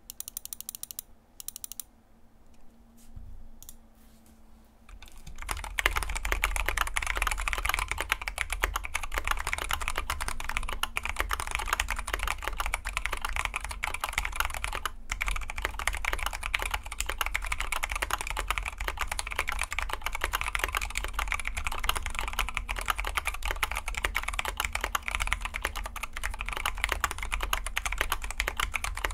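Typing on a KBD75v2 mechanical keyboard with lightly lubed Zealios v2 tactile switches and PBT keycaps. There are only a few scattered key presses at first, then a fast, continuous stream of keystroke clacks from about five seconds in.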